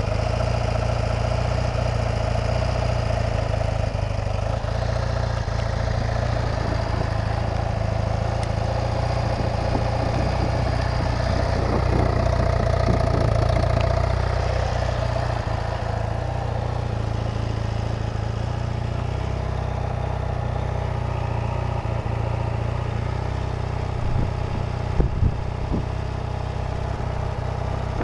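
1981 BMW R65's air-cooled flat-twin boxer engine idling steadily while it warms up from a cold start. A few sharp knocks come near the end.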